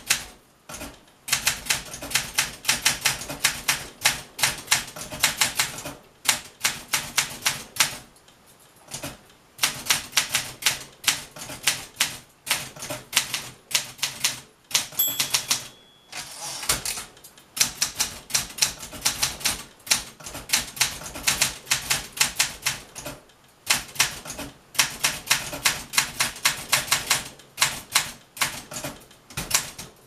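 A 1967 Olympia SM9 manual typewriter being typed on: rapid bursts of typebar strikes broken by short pauses. About halfway through, the margin bell rings once and the carriage is returned by its lever before typing resumes.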